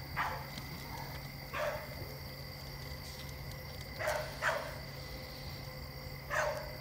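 Sprite being chugged from a large plastic bottle: short glugs every second or two, several coming in pairs. A steady chirring of crickets runs underneath.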